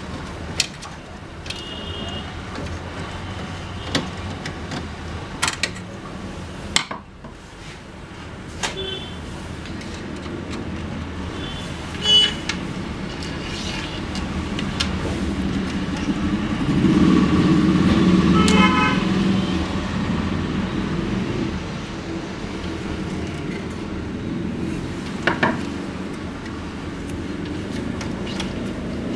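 Road traffic with a few short car horn toots, a vehicle swelling loudest about two-thirds of the way through. Occasional sharp clicks of printer parts and screws being handled sound over it.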